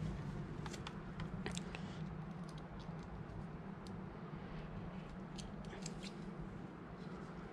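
Light, scattered clicks and small rustles of wires and a small plastic switch connector being handled, over a steady low hum.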